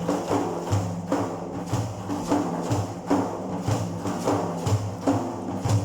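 Instrumental music with a steady, repeating drum pattern: low drum hits under held instrumental tones, with no singing.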